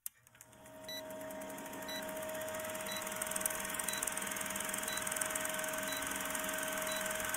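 Vintage film-countdown sound effect: a steady film-projector whir and rattle with a held hum underneath, and a short high blip about once a second as the numbers count down.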